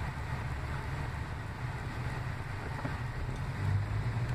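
Steady low rumble of a vehicle engine, with wind noise on the microphone.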